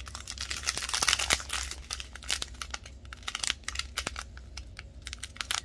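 Clear plastic zip bags of square diamond-painting drills crinkling and rustling as they are handled and shuffled through by hand, with many small irregular crackles and clicks.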